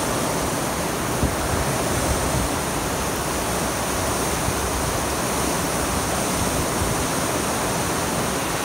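Heavy rain pouring down in a downpour: a steady, even hiss of rain on wet asphalt.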